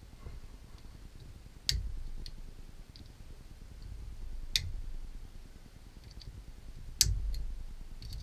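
Metal tools and parts being handled on a lathe's tool post, with light ticks and three sharper metallic clicks, each with a low knock, about two, four and a half and seven seconds in.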